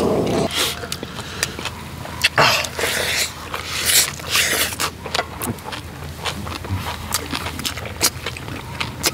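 Close-up eating sounds of bibimbap: spoons scraping, then clicking against a steel bowl and a large iron cauldron lid, with slurping and chewing. The scraping stops about half a second in, and short spoon clicks and slurps follow.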